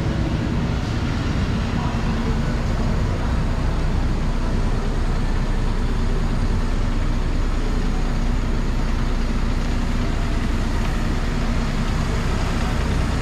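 Hanoi Metro electric train running, a steady low rumble with a faint even hum over it.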